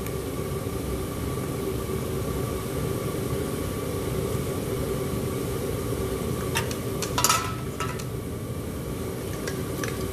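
Homemade metal-melting furnace firing, a steady rushing noise with a faint hum under it, while aluminum soda cans melt in its crucible. A cluster of sharp clinks comes about seven seconds in, and two more near the end.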